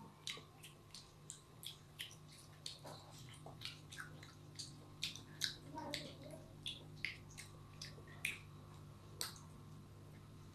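Close-up eating sounds of a child chewing rice and chicken curry eaten by hand: irregular wet mouth clicks and smacks, a few a second, over a low steady hum.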